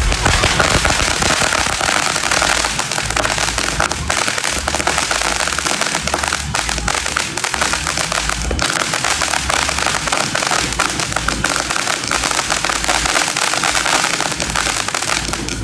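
Many firecrackers and fireworks going off at once: a dense, continuous crackle of rapid pops with no break, with uneven deeper thumps beneath.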